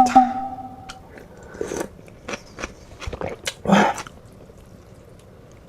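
A short ringing tone that fades over about a second, then close-up eating: a series of sharp clicks and crunchy bites and chewing of garlic-scape bibimbap, loudest a little before the end.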